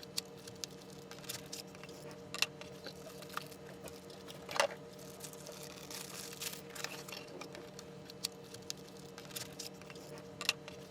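Scattered light clicks and taps of the Swivl Expand iPad case and its packaging being opened and handled, over a faint steady hum.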